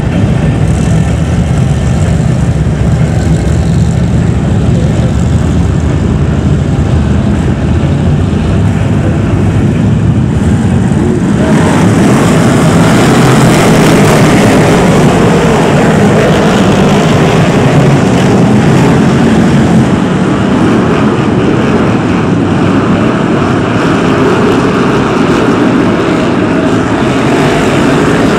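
The V8 engines of a pack of BriSCA F1 stock cars running around the track, a steady loud din that grows louder and harsher about 11 seconds in.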